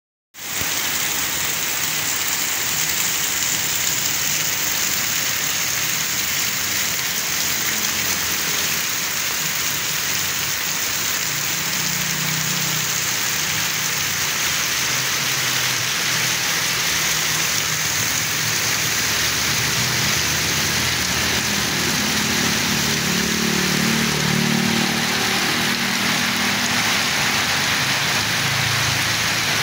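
Very heavy rain pouring down onto a flooded road, a loud steady hiss. Vehicles drive through the water, their low rumble rising in the middle and again for the last several seconds.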